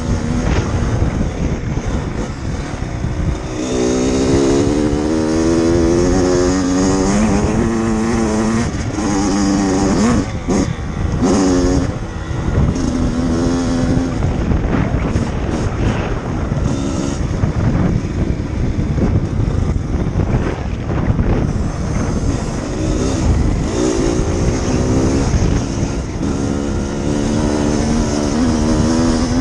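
Kawasaki KX85 two-stroke dirt bike engine heard from on board, revving up again and again with the pitch rising and falling back at each gear change. A few thumps come around ten to twelve seconds in.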